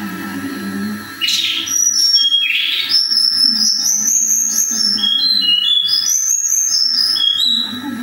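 Caged tledekan songbird in full song: a quick varied run of high whistled notes and chirps, starting about a second in and breaking off near the end, over a steady low hum.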